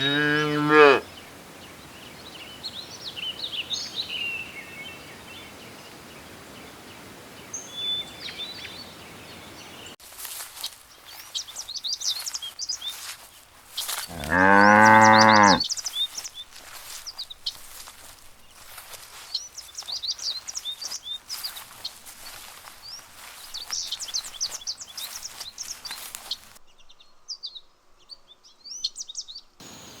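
Cows mooing: a short low moo right at the start and a longer, louder moo about halfway through, with small birds chirping throughout.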